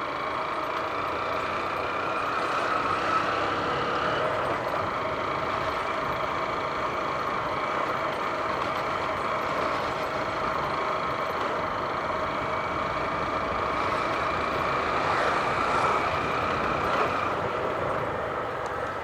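150 cc single-cylinder motorcycle engine running steadily while being ridden, its note shifting slightly near the end.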